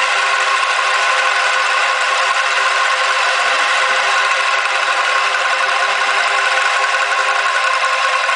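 Several bamboo angklungs shaken together in a continuous rattling tremolo, sounding a few pitches at once, steady throughout.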